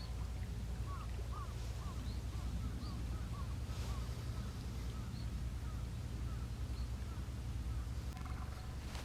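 Outdoor ambience: a steady low rumble, with a run of faint, quick bird chirps in the first few seconds and a few scattered higher peeps.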